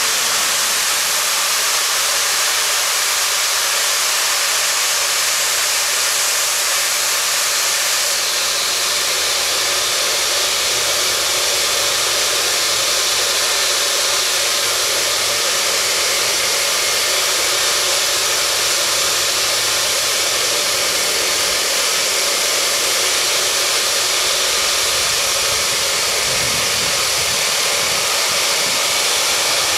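Natural gas venting from the pipework of a vertical Marcellus gas well: a steady hiss with no break.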